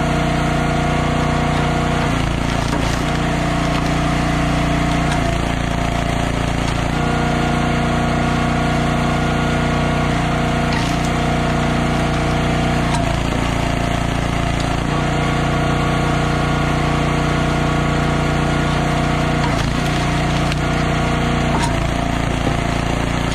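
Eastonmade AXIS wood splitter running steadily while its hydraulic ram pushes through hardwood rounds. Its running note drops and recovers several times as the load comes on and the rounds split.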